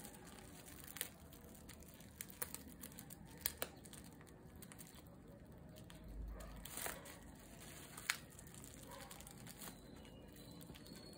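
Plastic bubble-wrap mailer crinkling and rustling softly as hands handle it and pull it open, with a few scattered sharp crackles.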